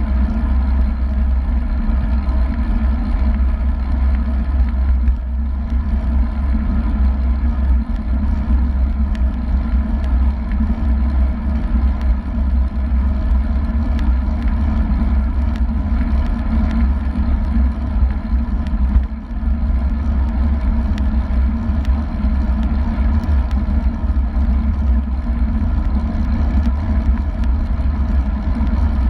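Wind buffeting a road bike's handlebar-mounted action-camera microphone at about 37 km/h: a loud, steady, low rumble, with the hiss of tyres on the road beneath it.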